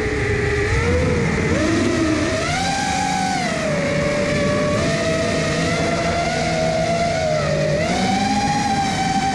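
FPV quadcopter's brushless motors and propellers whining, the pitch sliding down and back up several times as the throttle changes.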